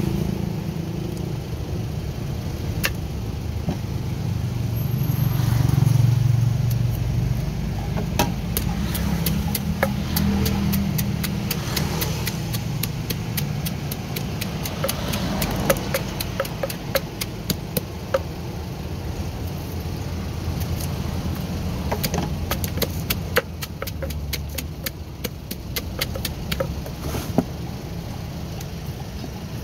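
Wooden pestle knocking and grinding in a tall clay mortar as chopped fruit is pounded: a run of sharp, irregular knocks that come thicker in the second half. A steady low engine rumble from traffic runs underneath, loudest about six seconds in.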